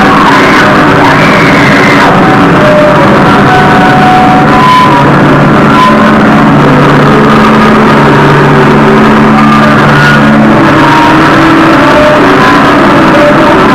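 Very loud, distorted electric guitar played live through amplifiers: a dense wall of noisy rock sound with a few held notes ringing through it.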